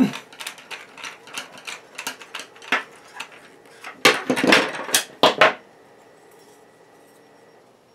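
Screwdriver tightening a small screw and nut through a carbon-fibre bracket: a quick run of light clicks. About four seconds in comes a louder clatter of metal tools and carbon-fibre parts set down and handled on a table.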